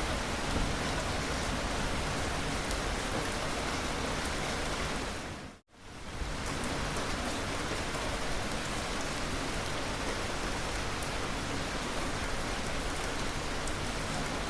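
Steady rain falling, an even hiss with faint scattered drop ticks. It dips away almost to nothing for a moment about five and a half seconds in, then returns at the same level.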